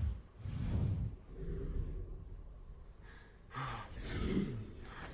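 Heavy, gasping breaths from a person, in a few soft swells.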